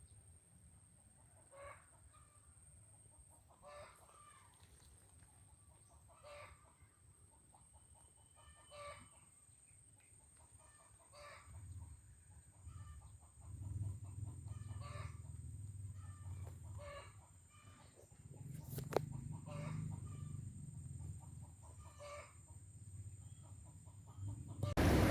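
A chicken calling faintly and repeatedly, one short call about every two seconds. A low rumble rises beneath it from about halfway, with one sharp click near the end.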